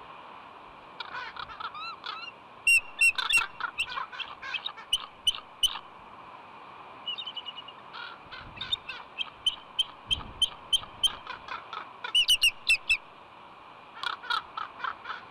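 Bald eagle on the nest giving several series of high, chattering, piping calls, loudest about three seconds and twelve seconds in. These are the incubating eagle's calls for help while corvids try to steal her egg.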